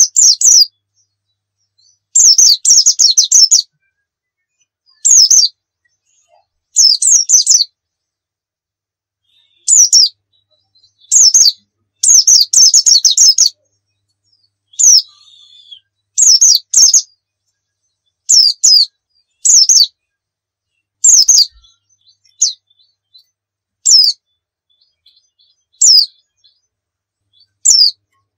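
Pleci dakun white-eye singing in rapid bursts of high-pitched chirps and twitters, each burst under a second to about a second and a half long, repeated every one to two seconds with short silent gaps.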